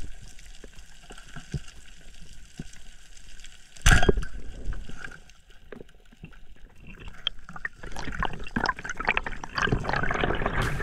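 Underwater sounds picked up by a diver's camera: scattered faint clicks, a loud rush of water about four seconds in, then water rushing past that grows louder near the end as the diver swims.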